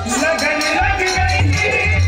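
A ravanahatha, the Rajasthani bowed folk fiddle, playing a sliding melody, with the bells on its bow jingling in time with the strokes over a steady low hum.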